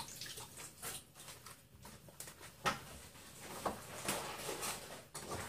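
A few faint, scattered clicks and knocks with soft rustling, as of items being picked up and handled in a kitchen.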